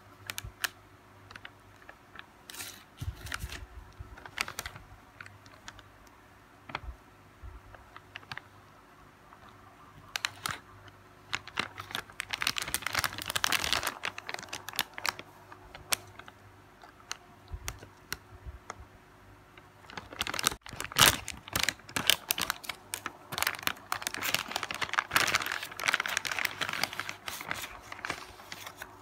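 Plastic food wrapper crinkling and rustling as it is handled, with scattered sharp clicks. The densest, loudest crinkling comes in two stretches, the second in the latter half as the pack is opened and the bun taken out on its clear plastic tray.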